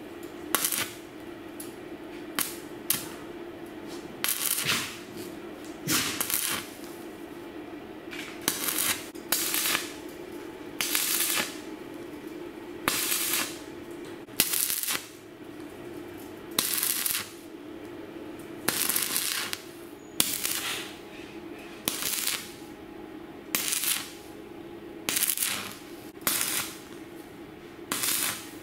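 Stick (arc) welding: the electrode's arc crackling in short bursts, about one every second and a half, as a caster wheel's mounting plate is welded to a steel frame, over a steady low hum.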